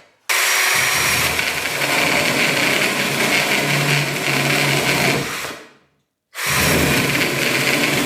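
Cordless drill driving a mini chainsaw attachment, its motor and chain running at full speed. It is switched off about five seconds in and winds down, then starts up again abruptly about a second later.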